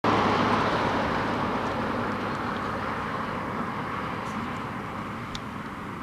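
Engine noise from a passing vehicle: a steady rumble with a low hum, fading gradually.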